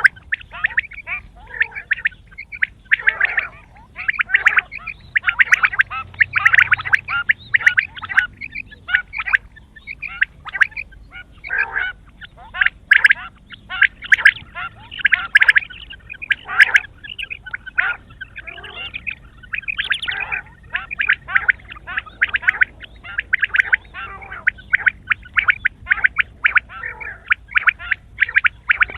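Quail calling without a break: bursts of rapid, rattling chatter, one after another every second or so.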